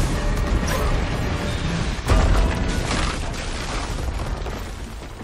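Film sound effects of a large masonry-and-metal structure collapsing: a heavy rumble and debris clatter with a sudden loud crash about two seconds in, fading out near the end. Orchestral score plays underneath.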